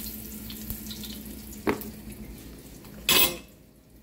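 Cumin seeds sizzling in hot oil in a steel pan, a steady crackling hiss with a single click about halfway through. Just after three seconds a short loud rustle breaks in, and then the sizzle falls away to quiet.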